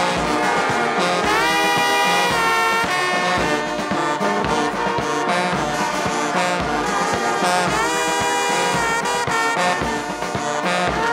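Brass marching band playing: trombones, sousaphones and baritone horns over a steady bass-drum beat, with rising slides in the brass about a second in and again near eight seconds.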